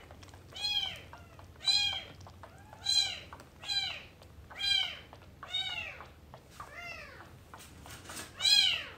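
Young kitten meowing over and over, about one cry a second, each cry rising then falling in pitch.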